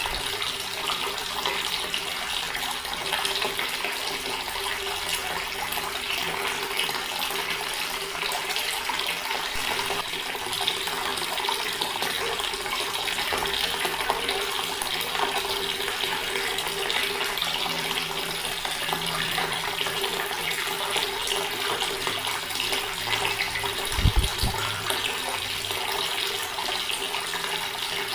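Water running steadily from a tap, splashing in an even stream. A brief low thump comes near the end.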